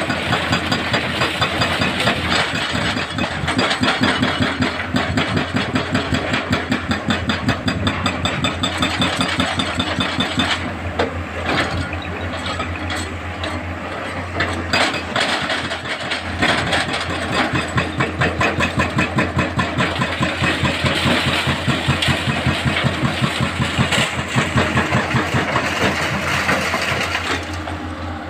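Heavy earthmoving machinery engines running steadily, with an even pulse of about three beats a second.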